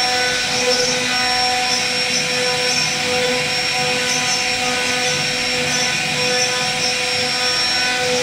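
CNC router spindle running at a steady high whine while a small carving bit cuts into a solid wood door panel, with a flickering high cutting hiss over the whine.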